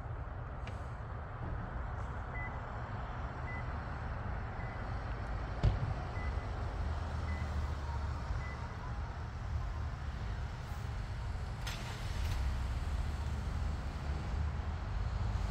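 Steady low rumble of a running vehicle, with about six faint, evenly spaced short beeps, roughly one a second, in the first half and a single thump near the middle.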